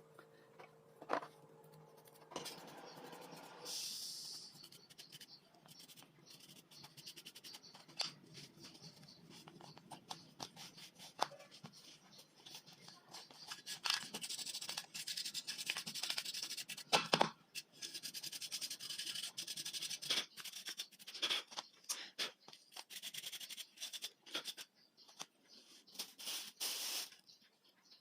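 Hands prying at and handling the parts of a disassembled electric palm sander: irregular scraping and rubbing with sharp clicks, the loudest about a second, eight seconds and seventeen seconds in.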